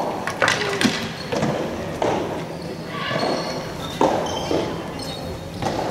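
Soft tennis balls knocking off rackets and the wooden gym floor: about seven sharp, irregularly spaced hits, each ringing on in the echo of a large hall.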